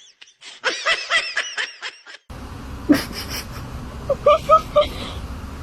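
Rapid high-pitched laughter, a quick string of short 'ha' pulses, about a second in. About two seconds in the sound cuts to a steady background hiss with a couple of clicks and four short squeaky sounds near the end.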